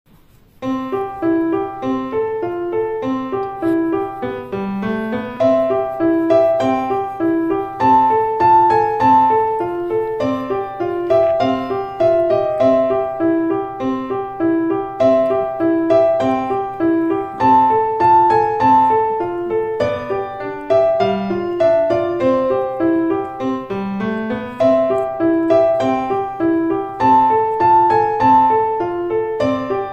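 Background piano music: a light melody of evenly paced notes repeating in a regular pattern over a steady accompaniment, starting about half a second in.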